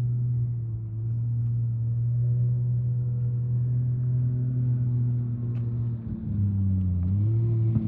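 Off-road race vehicle's engine running at a steady, even pitch, then dropping in pitch for a moment and starting to rise again near the end.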